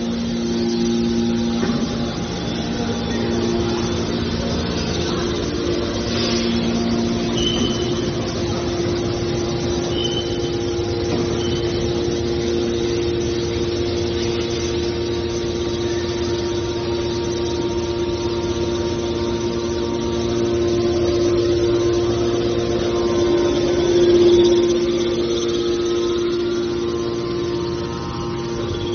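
Hydraulic power unit of a scrap iron baler running with a steady hum and a held tone, swelling briefly louder toward the end.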